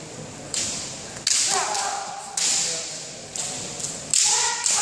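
Kendo bout: bamboo shinai clacking and striking about six times, with two short shouted kiai, echoing in a large gym hall.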